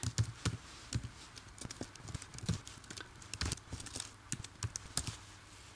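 Typing on a computer keyboard: light, quick key clicks at an uneven pace, several a second.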